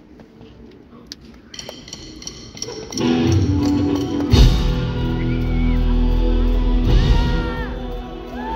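Live rock band starting to play: a few light, evenly spaced taps, then drums, bass and electric guitars come in loud about three seconds in, with a heavy low hit a moment later.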